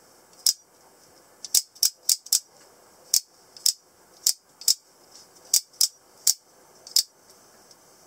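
Scarab out-the-front automatic knife being fired and retracted repeatedly with its thumb slider: a series of about fourteen sharp metallic snaps, some in quick pairs, as the spring-driven blade shoots out and snaps back into the handle.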